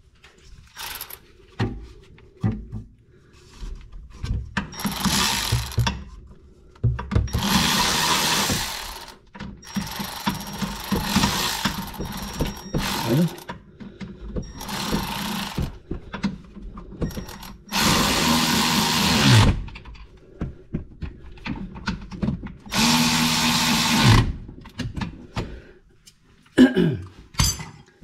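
Hand-held power tool run in repeated bursts of a second or two, its motor winding down each time the trigger is released, with small knocks of handling between the bursts.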